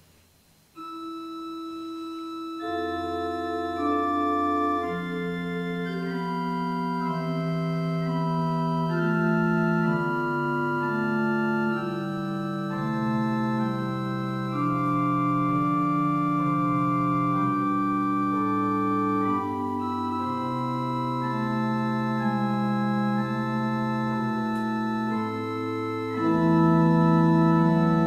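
Organ playing a slow prelude in long held chords that change slowly. It comes in about a second in, a low pedal bass joins a moment later, and it swells louder near the end.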